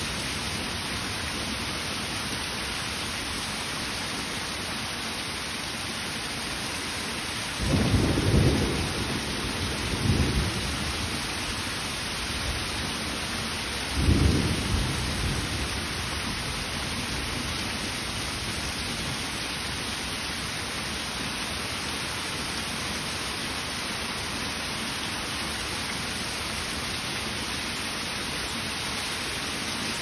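Heavy rain pouring steadily, with three short, loud low rumbles about 8, 10 and 14 seconds in.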